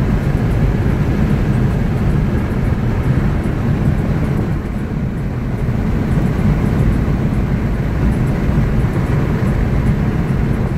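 Steady low road noise inside a car's cabin at highway speed: tyre roar and engine drone blended into an even hum with no sudden sounds.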